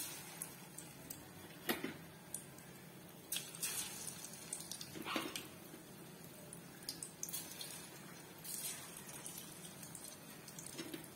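Batter-coated cauliflower pieces deep-frying in hot oil in a kadai: a faint steady sizzle with scattered pops and crackles.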